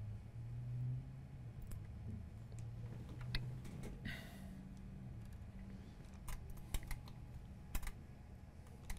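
A few small, sharp clicks and taps from hand tools at a repair bench, spaced irregularly and mostly in the second half, with a brief scrape about four seconds in, over a low steady hum.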